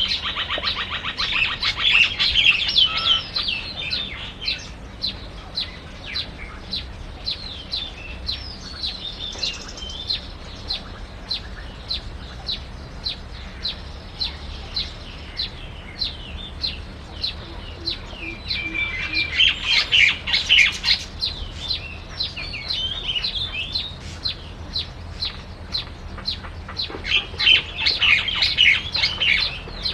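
Small birds chirping: short, high chirps repeat steadily two or three times a second, with louder bursts of dense twittering at the start, about two-thirds of the way in, and near the end.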